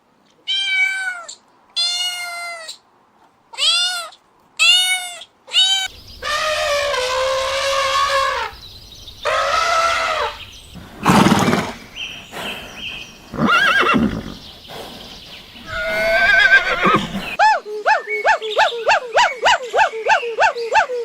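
Farm animals calling one after another. First comes a run of about six short pitched calls, then several longer calls with a lower, rougher one about eleven seconds in, and near the end a fast string of short repeated calls, about four a second.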